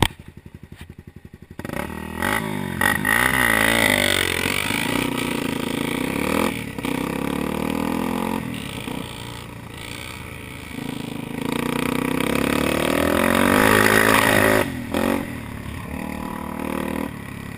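Dirt bike engine, quiet for the first second and a half, then revving hard as the bike rides off, the engine pitch rising and falling repeatedly as it accelerates and eases off, loudest a little past the middle and easing near the end.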